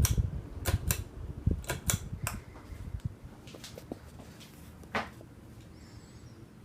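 52-inch CEI GE Vent ceiling fan running, with a string of sharp clicks and knocks over the first two and a half seconds and one more about five seconds in; the low rumble thins out after about three seconds.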